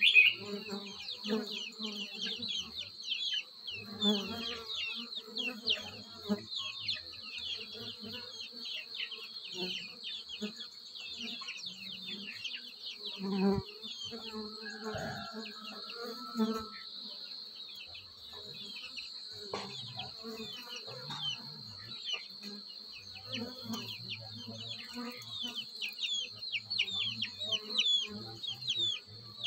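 Honeybees buzzing around their nest entrance in a tree hollow, the buzz swelling and fading as bees fly close past. Behind it runs a steady high-pitched insect drone with many short falling chirps.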